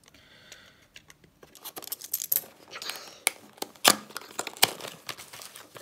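Utility knife cutting through the paper tamper seal on a cardboard camera box, then the box lid being pried open: cardboard scraping and rustling with a run of sharp ticks and taps, the loudest click about four seconds in.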